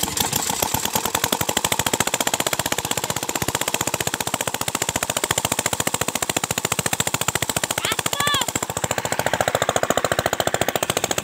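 Single-cylinder Chinese diesel engine running just after starting, with a rapid, even chugging beat as it drives a water pump. Water gushes and splashes from the pump's outlet pipe.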